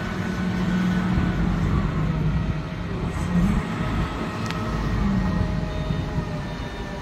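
Engine of a large 10-ton diesel forklift running steadily as it carries a shipping container on its forks, its pitch rising briefly twice. A single sharp click about two-thirds of the way through.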